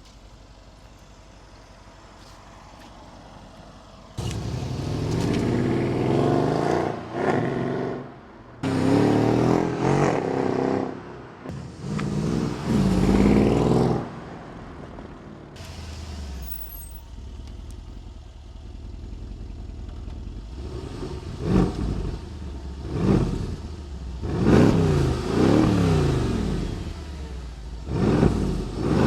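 Mercedes-AMG CLS 63 V8 engine starting about four seconds in and being revved hard. It drops to a steady idle, then takes a series of quick throttle blips near the end.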